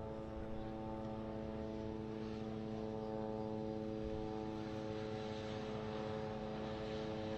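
A steady mechanical hum held at one unchanging pitch, engine-like, over a low rumbling background noise.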